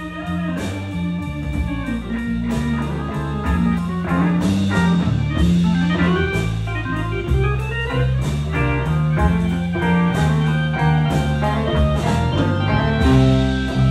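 Live blues band playing an instrumental passage: an electric guitar lead with bent notes over electric bass and a drum kit keeping a steady beat.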